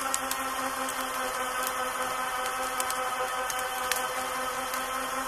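Champion 3,500 lb electric ATV winch running steadily under load as it pulls on a cable, a constant hum with scattered sharp clicks.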